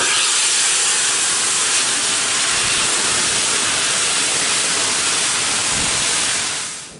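Steam locomotive letting off steam: a loud, steady hiss that fades away near the end.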